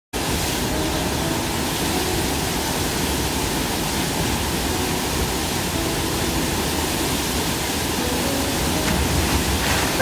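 Waterfall plunging into a rock pool, a steady loud rush of falling water.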